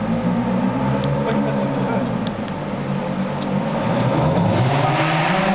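Ferrari F430's V8 engine running inside a concrete underground garage. Its pitch rises over the last second or so as the car accelerates.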